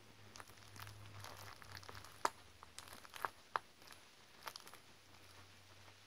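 Metal tweezers picking at green fake pimples under clear plastic film: soft crinkling of the plastic, then four sharp clicks from about two seconds in.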